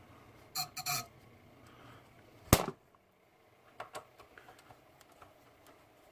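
Handling noise from work inside an opened desktop PC: two short scrapes under a second in, then a single sharp knock about two and a half seconds in, followed by a few faint small clicks.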